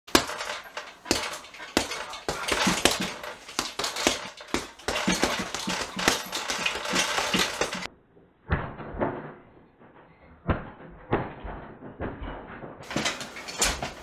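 A rapid run of knocks, bangs and clattering hits that sounds duller for a few seconds past the middle.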